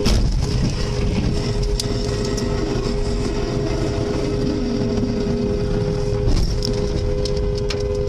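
A car horn sounding in two steady tones, held down over loud road and engine rumble and let go briefly about six seconds in. A sharp knock comes right at the start.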